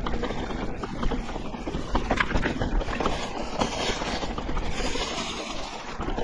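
Electric mountain bike riding over a rough, stony forest track: a continuous rumble of tyres on loose ground with many small irregular rattles and knocks from the bike.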